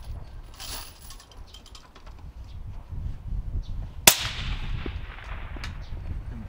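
A single shot from a suppressed 6.5 Creedmoor bolt-action rifle about four seconds in: one sharp crack with an echoing tail lasting about a second. Wind rumbles on the microphone throughout.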